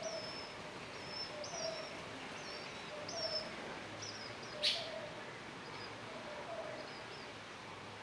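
Birds chirping: a run of short, high, thin chirps about twice a second, over a softer lower call that repeats more slowly. About halfway through comes one sudden sharp chirp or click, the loudest sound here.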